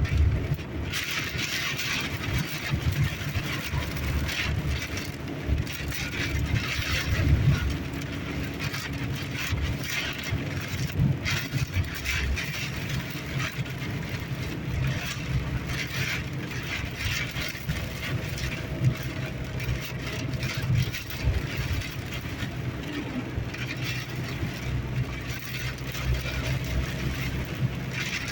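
Car driving, heard from inside the cabin: a steady low rumble of engine and tyres on the road, with an uneven hiss over it.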